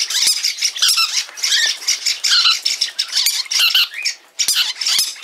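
Green-cheeked conure squawking and chattering in quick, harsh calls, with a few sharp clicks in between.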